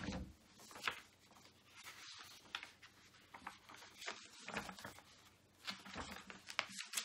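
Paper worksheets being handled and rustled: faint, irregular rustles and small clicks with short quiet gaps between them.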